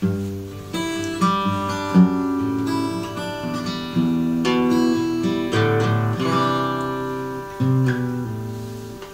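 Solo acoustic guitar playing a song's closing chords, picked and strummed. The last chord is left to ring and fade out.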